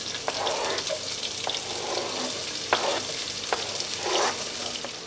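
Garlic, ginger and spice seeds sizzling in hot oil in a frying pan, with a few taps and scrapes of a wooden spatula as chopped red onion is pushed in off a plastic cutting board.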